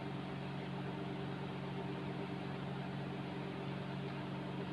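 Steady low electrical or motor hum with several pitched layers over a faint even hiss.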